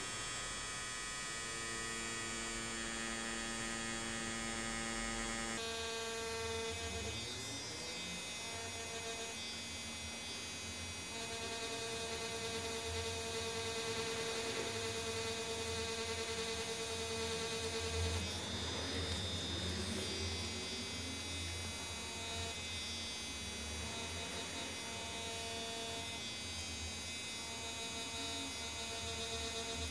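DragonHawk Mast Archer wireless rotary tattoo machine running steadily, a hum of several held tones, as its three-round liner needle works lines into synthetic practice skin.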